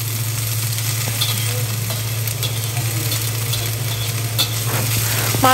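Bean sprouts stir-frying in a black carbon-steel wok: a steady sizzle, with the scrape and rustle of a slotted metal spatula tossing them. A steady low hum runs underneath.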